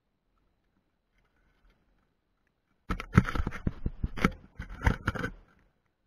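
A quick, irregular run of clattering knocks and scrapes, metal and hardware on the overhead line's ground wire as the line trolley gets going after a bird-diverter spiral is fitted. It starts about three seconds in and lasts about two and a half seconds.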